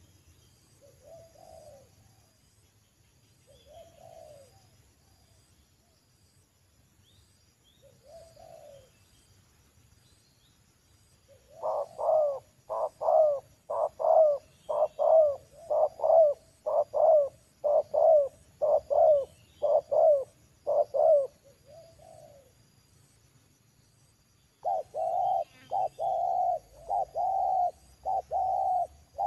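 Spotted doves cooing. Faint coos come every few seconds at first. About halfway through, a loud run of quick coo notes starts, about two a second, and stops after some ten seconds. Near the end another loud run begins.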